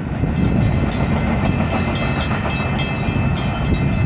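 Florida East Coast Railway freight train rolling away just after its last car has passed: a steady low rumble of wheels on rail, with many irregular high clicks and squeaks.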